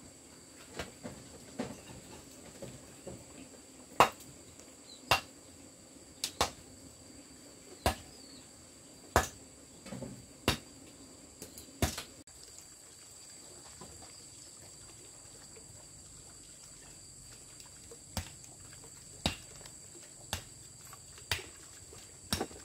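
A series of sharp knocks, roughly one a second, in two runs with a pause of several seconds between, over a steady high-pitched insect drone.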